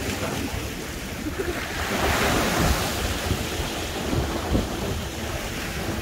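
Sea waves washing and breaking against shoreline rocks, with wind buffeting the microphone; the surf swells louder about two seconds in.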